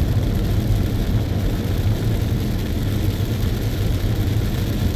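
Steady road and engine rumble heard inside a moving car, with the hiss of tyres on a rain-wet road.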